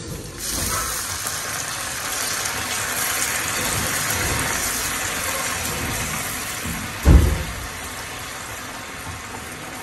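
Water poured into a hot pan of sauce hisses and sizzles as it hits, then eases off slowly while it is stirred. A single dull knock comes about seven seconds in.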